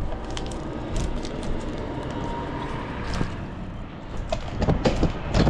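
Insulated copper wire being run through a cheap manual wire stripper: a steady scraping of the blade through the insulation with many sharp clicks, and a few louder knocks near the end.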